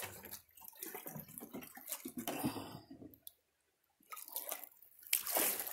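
Water sloshing, splashing and dripping as a plastic gold pan is worked in shallow creek water, broken by a brief dead silence a little past the middle.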